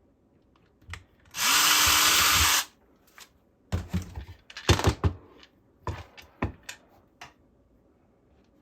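Power drill driving a screw part-way in, one run of a little over a second, its motor whine rising quickly to a steady pitch and then cutting off. A scatter of sharp clicks and knocks follows.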